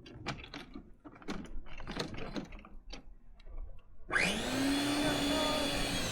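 Scattered short crunches and clicks, then about four seconds in a motor starts abruptly: its hum rises quickly in pitch and settles into a steady drone over a loud rush of air, like a blower running.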